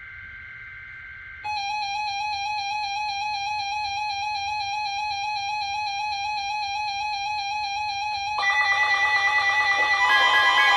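A steady electronic tone with overtones and a slight regular waver comes in about a second and a half in. About 8.5 s in it gives way to louder music of several held tones with gliding pitches.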